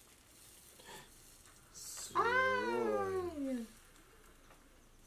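A cat meowing once: a single long meow of about a second and a half, about two seconds in, that rises and then falls in pitch.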